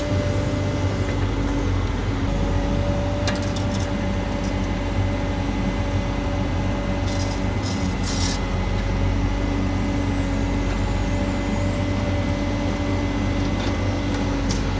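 Heavy-equipment engine running steadily, a constant drone with a low hum. A few brief sharp clinks sound about 3 seconds in and again around 7 to 8 seconds.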